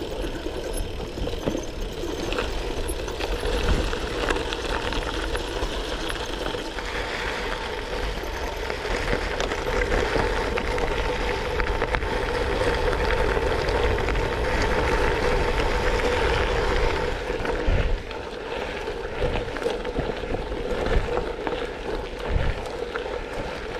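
Gravel bike tyres rolling over a loose gravel track, heard from the handlebars, with a low rumble of wind on the microphone. The noise is steady throughout and dips briefly about eighteen seconds in.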